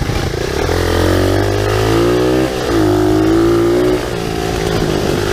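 SSR 125 pit bike's single-cylinder four-stroke engine revving hard under acceleration: the pitch climbs for about two seconds, dips briefly about halfway, holds high, then drops as the throttle eases about four seconds in.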